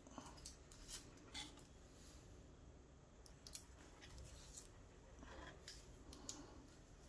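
Faint handling sounds of a graphics card's box and packaging: a string of small sharp clicks and short rustles at irregular intervals, about eight in all.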